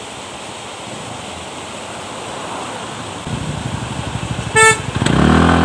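Spring water pouring steadily from a pipe into a plastic jerrycan. From about three seconds in, a motorbike engine rises over it, with a short beep a second later. The engine is at its loudest near the end.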